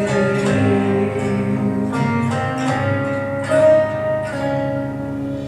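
Instrumental gospel music led by a strummed acoustic guitar, holding chords after the singing has stopped.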